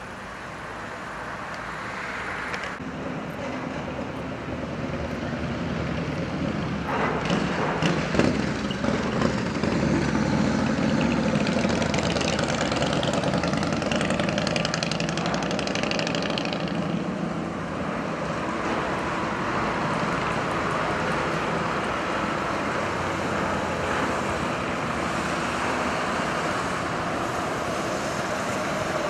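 Road traffic: motor vehicles running and passing with a steady engine hum, growing louder over the first ten seconds or so.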